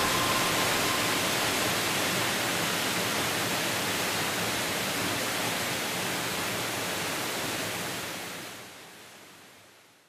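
Steady rush of falling water from a waterfall partly frozen into an ice curtain, fading out over the last two seconds.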